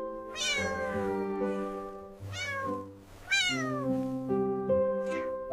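Soft background music of sustained chords, with a kitten meowing over it: three clear meows, each falling in pitch, and a fainter one near the end.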